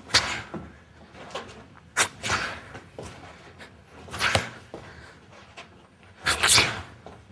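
Four sharp impacts about two seconds apart: a kick being met by a stop hit, with a short swish or scuff trailing each blow.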